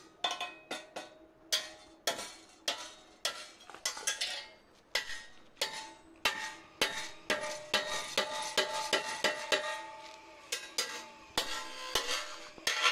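Claw hammer striking a flat steel strap laid over a square steel bar, bending the strap around the corner: sharp metallic clanks at about two a second, each ringing briefly.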